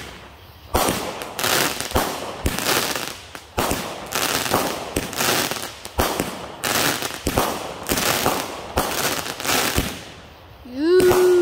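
Consumer aerial fireworks going off in a rapid series of sharp bangs, about two a second, stopping about a second before the end.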